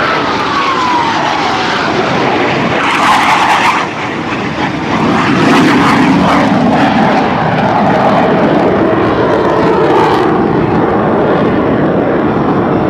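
Jet noise from a Blue Angels F/A-18 Hornet's twin turbofan engines as it passes low: a falling whine in the first second, then a loud, ragged rumble with crackle. The noise dips briefly about four seconds in, then runs loud and steady as the jet pulls up and climbs away.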